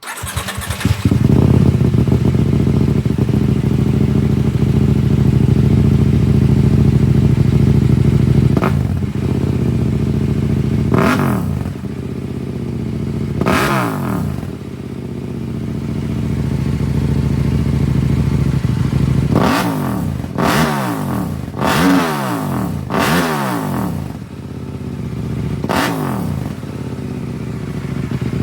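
An 890R motorcycle's parallel-twin engine through a GPR Evo exhaust, running a MaxxEcu race tune. It fires up and settles into a steady, lumpy idle, then is blipped eight times: three single revs spread out, a quick run of four, and a last one near the end, each rising sharply and dropping back to idle.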